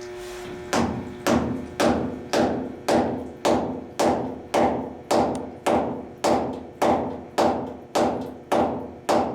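A heavy non-metal hammer striking steadily, about two blows a second, driving a plug into a leaking boiler tube.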